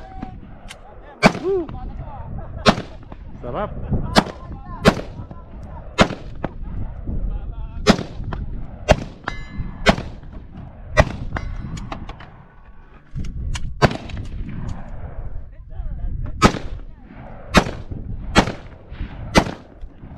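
Gunshots at a shooting range: single shots fired at an irregular pace, roughly one a second, varying in loudness, with a gap of about two seconds past the middle.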